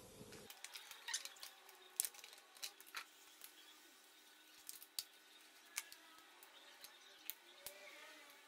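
Faint handling noises: scattered sharp clicks and light rustling as gloved hands move among motorcycle wiring, cables and connectors.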